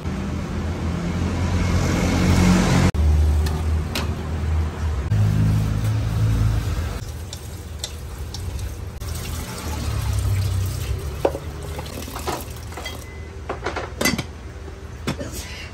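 Tap water running into a metal pot as shredded vegetables are rubbed and washed by hand, over a steady low rumble. Near the end, sharp clinks and knocks of a metal pot and lid being handled.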